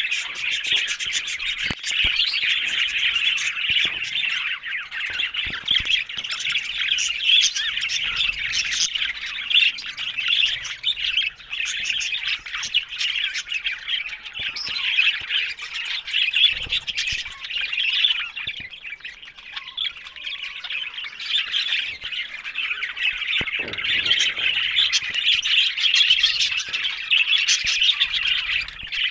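Budgerigars chattering and chirping nonstop in a dense, rapid stream of high squawks and tweets, briefly easing off a little past the middle.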